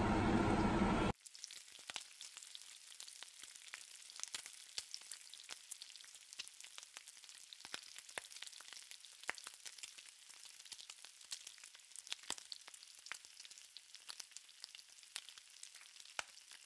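Pan of mussels in sauce sizzling faintly on the stove, a dense crackle of fine pops. Louder steady background noise before it cuts off about a second in.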